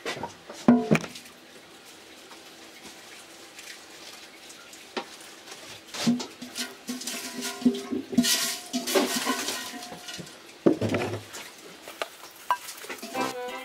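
Galvanized metal bucket clanking and knocking against a wooden barrel as wet barley mash is scooped and poured, with sloshing and splashing about eight seconds in.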